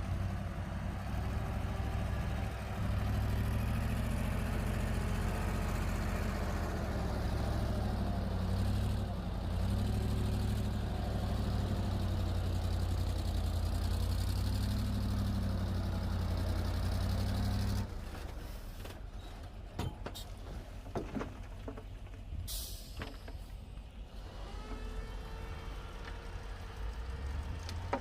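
Bulldozer's diesel engine running hard under load, its drone swelling and easing a few times. About two-thirds of the way in it drops off sharply, leaving a lower rumble with scattered knocks and a brief hiss.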